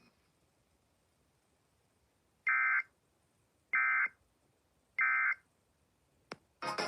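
Emergency Alert System end-of-message (EOM) data tones: three short electronic bursts, evenly spaced about a second and a quarter apart, signalling the end of the warning broadcast. Near the end come a sharp click and then a louder burst of sound.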